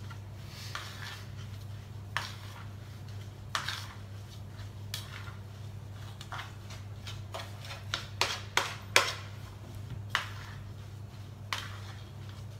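Spoon stirring a chopped marinade in a clear food chopper bowl, scraping and clicking against the sides in irregular strokes, with a quick run of sharper knocks about eight to nine seconds in. A steady low hum sits underneath.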